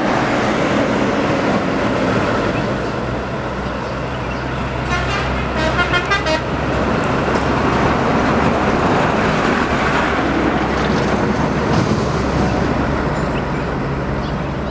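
Highway traffic noise with a large bus engine running by; about five seconds in, a pulsing multi-tone bus horn sounds for about a second and a half.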